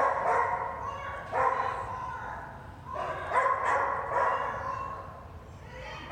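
A dog barking and yipping in several quick runs, echoing in a large arena.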